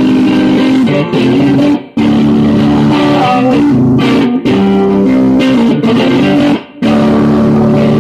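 Electric guitar played loud, held chords ringing out, with two short breaks about two seconds in and near the end.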